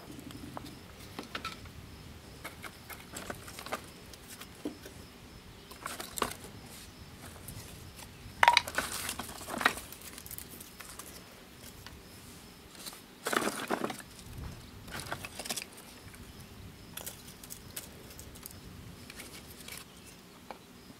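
Kindling and thin wood splits being set by hand on the firebrick floor of a kiln firebox: light clatters and rustles, with a louder clatter about eight and a half seconds in and another about thirteen seconds in.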